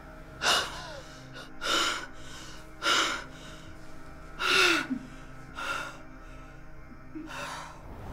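A woman gasping in distress, six sharp, ragged gasps roughly a second apart, a couple of them ending in a short falling cry, over a low sustained music drone.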